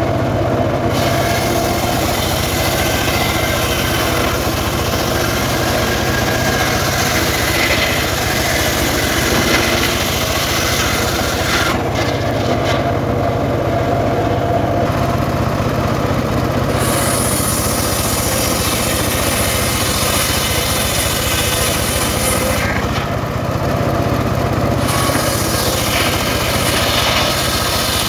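Homemade engine-driven circular sawmill running steadily, its large blade ripping logs lengthwise into planks. The higher cutting noise stops twice for a few seconds, about twelve seconds in and again near the end, while the engine keeps running.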